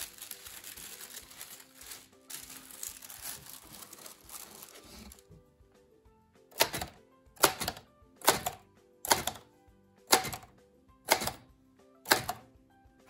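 Paper and carbon paper rustling as they are handled and fed into a manual typewriter. Then, from about six seconds in, slow single keystrokes, the typebars striking the platen about once a second, seven times.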